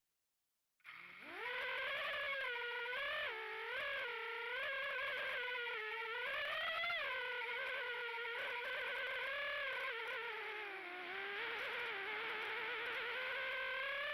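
Eachine Wizard X220 quadcopter's brushless motors and propellers whining. They spin up about a second in, then the pitch rises and falls continuously as the throttle changes in flight.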